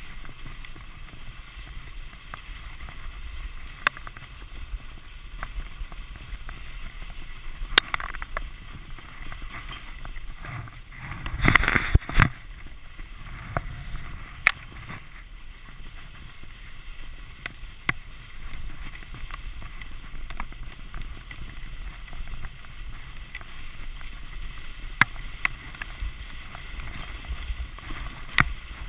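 Dog sled gliding over packed snow: a steady hiss from the runners with wind on the microphone, scattered sharp clicks and knocks from the sled, and a louder rattling jolt near the middle.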